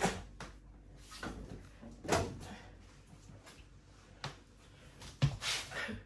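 Front-loading washing machine that has failed to drain being opened and emptied: the door clunks open, then a few knocks and wet rustles as sodden laundry is pulled out, the loudest knock near the end.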